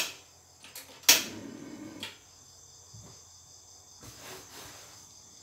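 Sharp clicks from a steel wok being handled on a gas stove: one right at the start and a louder one about a second in, followed by about a second of noise. Crickets chirp faintly and steadily throughout.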